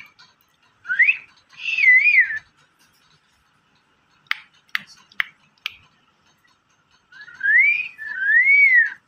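Rose-ringed parakeet whistling: two bursts of clear whistles that rise and waver up and down, one early and one near the end, with four sharp clicks in the middle as its beak taps the perch.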